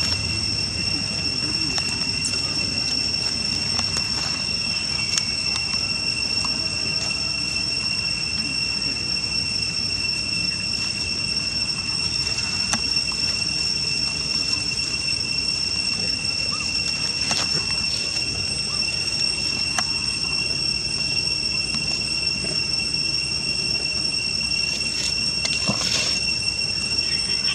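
Steady high-pitched drone of insects, an unbroken whine at two pitches, with a few faint rustles and clicks on top.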